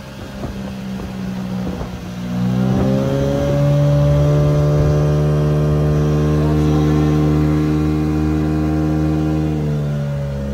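Evinrude 25 E-Tec two-stroke direct-injection outboard motor under way. The throttle opens about two seconds in, then the motor runs loud and steady at speed and eases off slightly near the end.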